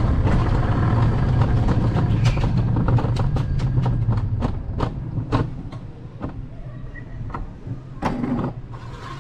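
Alpine coaster sled running on its steel rails: a steady low rumble of the wheels that fades about halfway through as the sled slows, with a string of sharp clacks, two or three a second, as it rolls in.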